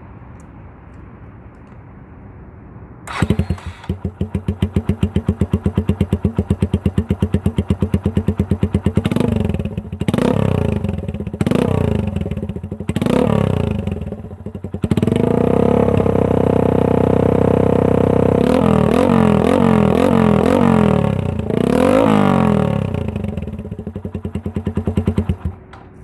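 Suzuki GN125H's single-cylinder four-stroke engine exhausting through a bullet-type muffler: it starts about three seconds in and idles with a distinct, evenly pulsing exhaust beat. It is blipped several times, held at higher revs for several seconds, blipped again, then shut off shortly before the end.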